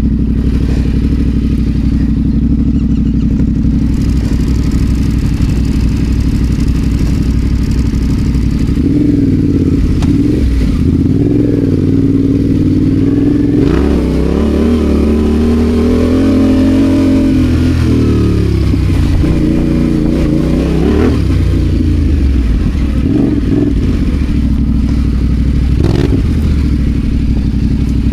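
Adventure motorcycle engine running under way, its pitch rising and falling again and again through the middle stretch as the throttle is opened and closed, with a steady low drone before and after.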